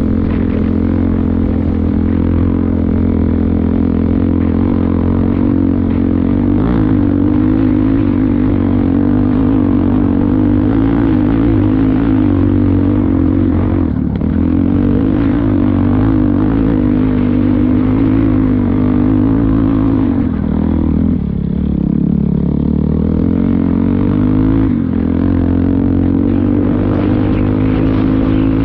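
Enduro motorcycle engine running steadily under load on a climb. About three quarters of the way through, the revs drop briefly and then pick up again.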